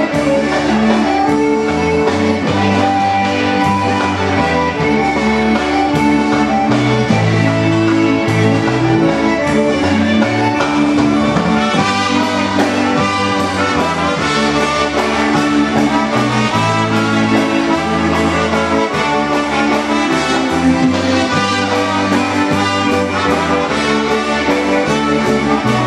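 Live polka band playing a waltz in three-four time.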